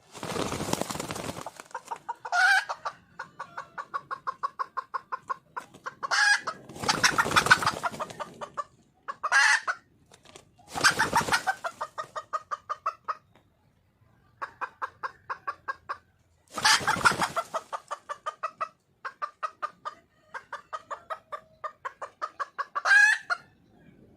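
Wild hen (female junglefowl) calling for a mate. Long runs of rapid clucks, about five a second, are broken by several louder harsh calls and a few short, higher, sharper notes.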